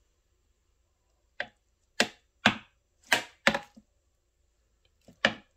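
Metal spoon knocking against the plastic bowl of a food processor, about six sharp taps, the last after a short pause, as ginger-garlic paste is knocked off the spoon into the bowl.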